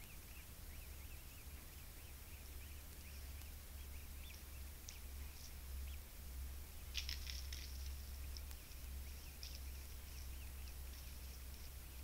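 Faint, short, high bird chirps scattered through, with a brief cluster of clicks about seven seconds in, over a steady low hum.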